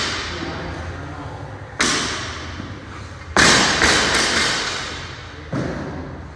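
A heavy dumbbell thudding on the gym floor three times, about two seconds apart, each thud ringing on in the hall, as it touches down at the bottom of each dumbbell snatch rep.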